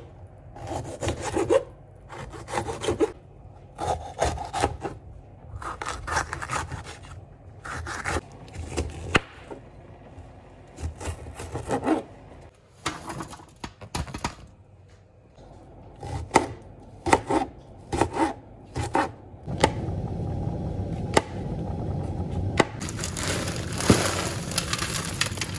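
Repeated scraping strokes of a kitchen knife working through vegetables, each stroke half a second to a second long with short pauses between. Near the end a steady rushing hiss takes over and grows louder.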